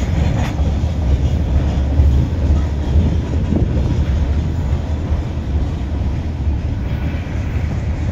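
Norfolk Southern mixed freight train's tank cars and gondolas rolling past: a steady low rumble of steel wheels on rail.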